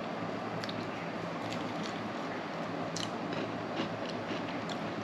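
A person eating: chewing, with a few faint clicks scattered through.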